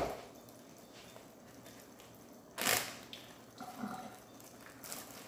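A zip-top plastic bag of frozen sauce being handled, with one short loud rustle about two and a half seconds in and a few softer handling sounds after it.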